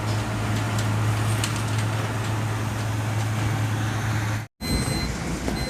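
Flour mill machinery running with a steady low hum and noise. It breaks off abruptly about four and a half seconds in, and a different steady background noise follows.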